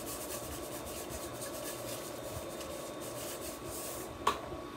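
Salt being shaken from a canister onto salad greens: a fast, fine rattling patter of grains, with a single sharp click near the end.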